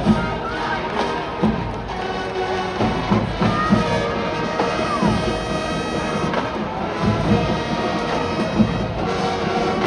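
Marching band playing, with brass holding and changing notes over repeated drum hits, and crowd noise in the background.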